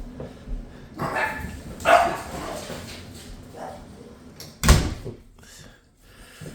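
A dog barks twice in quick succession, then there is a single sharp knock.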